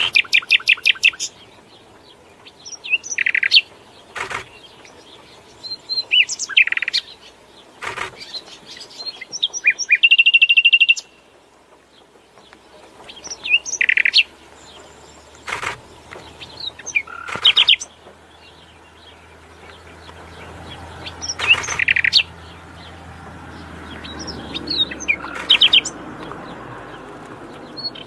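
A songbird singing in separate phrases of rapid repeated notes, short rising and falling whistles and a fast buzzy trill, with pauses between phrases. A few sharp clicks fall between the phrases.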